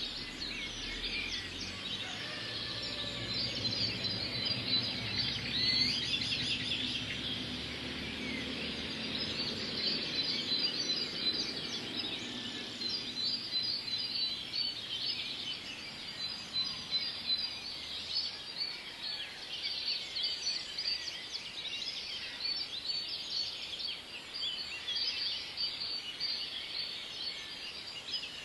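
Many small birds chirping and trilling at once in a dense, continuous chorus, with rapid repeated notes. A faint low rumble sits underneath during roughly the first half.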